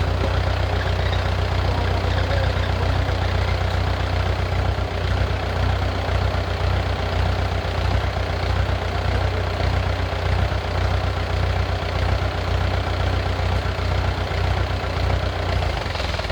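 Heavy engine running steadily at an even speed, with a deep, constant low hum and no change in pace.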